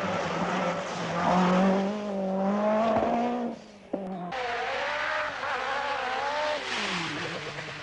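Rally car engines at high revs, the pitch climbing and falling as they accelerate and change gear. The sound drops away abruptly about three and a half seconds in, then a second car's engine comes in, its revs falling near the end.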